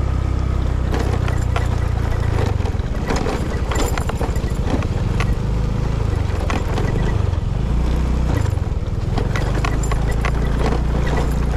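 Honda automatic scooter running at low speed over a rutted dirt track: a steady low engine hum with frequent knocks and rattles as the bike jolts over the bumps.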